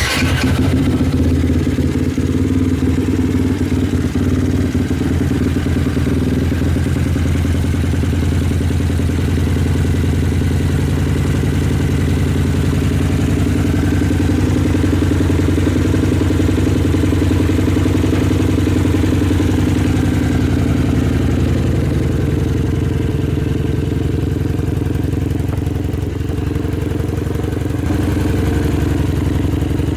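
Motorcycle engine starting and then idling steadily through a titanium Scorpion Serket Taper racing exhaust can.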